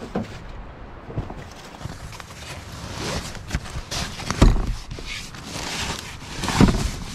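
Fabric rustling and gear bumping as a nylon cot carrying bag is dragged out from among packs and clothing on a car's back seat. There are heavier thumps about four and a half and six and a half seconds in.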